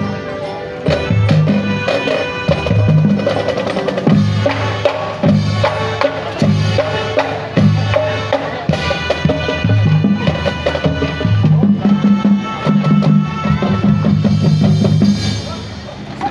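Marching band playing: a drumline of bass and snare drums keeps a steady beat under sustained pitched chords from the band, with sharp percussion clicks throughout.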